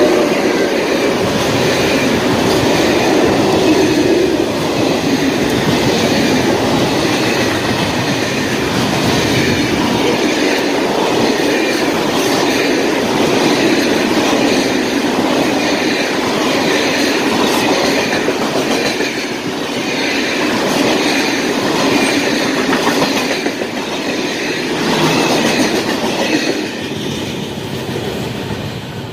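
A freight train of loaded log wagons hauled by an electric locomotive rolls past close by, its wheels clattering rhythmically over the rail joints. The sound fades near the end as the last wagons move away.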